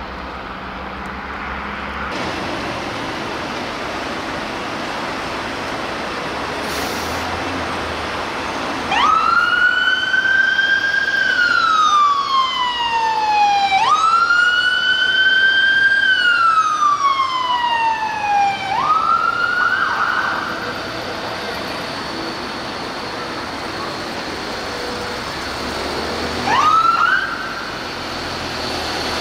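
Ambulance siren on a Renault Master van ambulance sounding a wail: each cycle rises quickly, then falls slowly, repeating about every five seconds. Three cycles play over city traffic before it cuts off, and a brief rising sweep comes near the end.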